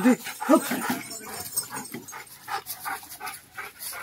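American bully dog panting in quick, rhythmic breaths, with a couple of short whines in the first half-second.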